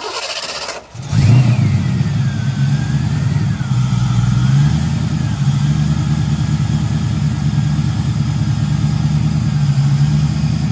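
Fox-body Mustang V8 cranked by the starter, catching about a second in and settling into a steady idle. It runs with the supercharger belt off, as a test that oil flows through the blower's oil feed.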